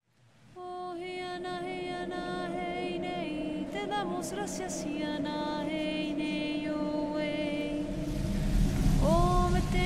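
Slow chanting: a singing voice holding long notes with small slides where one note turns into the next. Near the end a low rumble joins and a louder new sung phrase begins.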